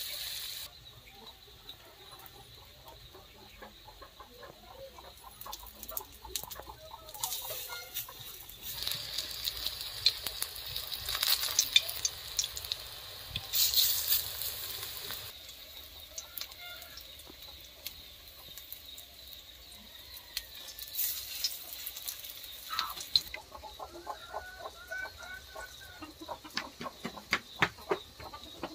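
Handfuls of drumstick-flower and gram-flour fritter batter sizzling in hot oil in a kadai, the sizzle rising in bursts a few seconds long as each piece goes in.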